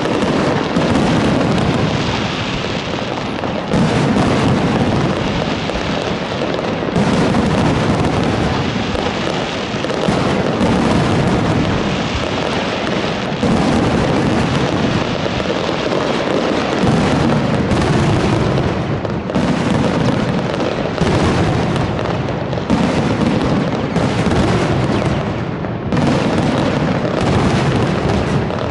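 Fireworks display: a dense, continuous barrage of shell bursts, with a fresh burst every one to three seconds and no pause.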